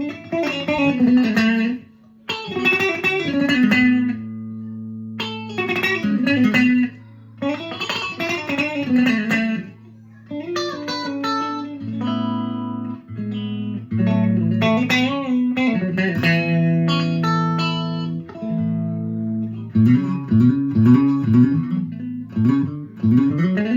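Guitar freshly fitted with new strings, played solo: phrases of quick plucked notes over sustained low bass notes, with short breaks between phrases.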